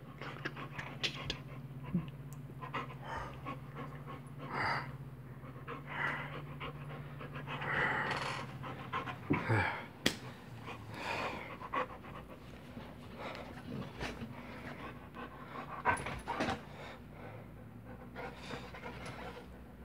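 Saint Bernard puppy panting in irregular breaths, with a rubber chew toy in its mouth. A steady low hum runs under the first half and stops about halfway through.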